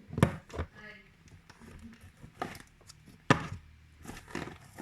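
Several sharp knocks and taps from slime containers being handled and set down, the loudest about a quarter second in and just over three seconds in.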